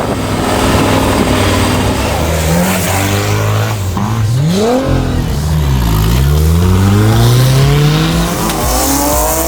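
Off-road 4x4's engine revving hard, its pitch climbing and dropping several times, with a long steady rise in the second half.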